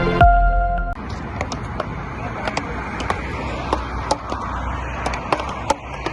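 Beach racket paddles hitting a ball: sharp wooden knocks, irregular and overlapping, about one or two a second, as several games go on at once, over a background of voices. A musical intro cuts off about a second in.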